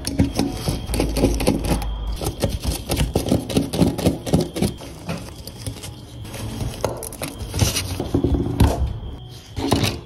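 Small screws being backed out of a rusty diecast metal model-car body with a small screwdriver. Metal clicks and scrapes, and small diecast parts clink as they are handled on a cutting mat.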